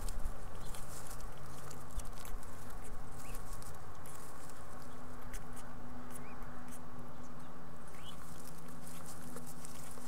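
Mourning dove adult and fledglings shuffling in the nest during a bill-to-bill feeding: rustling with light scratching clicks, some bumps in the first few seconds, over a faint steady hum. A few faint short rising chirps come through now and then.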